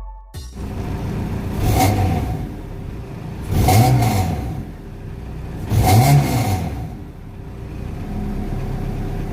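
Proton Wira's rebuilt MIVEC engine idling, blipped three times about two seconds apart, each rev rising and falling back to a steady idle.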